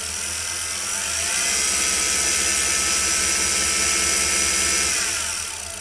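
Draper variable-speed mini wood lathe's motor and spindle starting up on its soft start: the whine rises gently in pitch and level over about the first second and a half rather than kicking straight in, then runs steady. It winds down about five seconds in.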